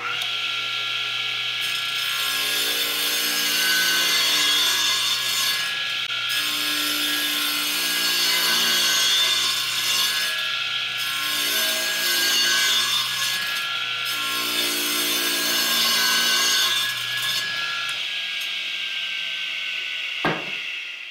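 Radial arm saw running and cutting along a long wooden board: a steady motor hum under dense blade-cutting noise that swells and eases in stretches for about fifteen seconds. Near the end the motor hum stops, and a single knock follows shortly before the end.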